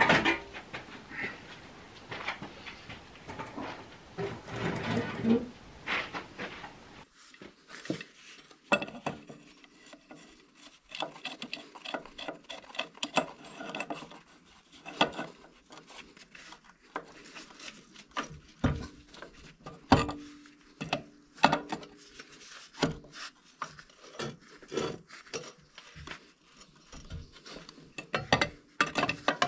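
Hand work on a tractor engine: about seven seconds of rattling and rubbing handling noise, then a string of irregular sharp metallic clinks, knocks and scrapes as a large adjustable wrench is worked onto the crankshaft pulley nut of the Zetor 4911's diesel. The nut is being fitted so the long-parked engine can be turned over by hand to see if it is free.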